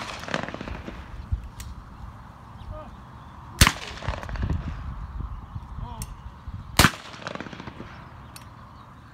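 Shotguns firing at clay targets on a trap line: two loud shots about three and a half seconds in and again about three seconds later, each with a short echo. Fainter single shots come from farther down the line between them.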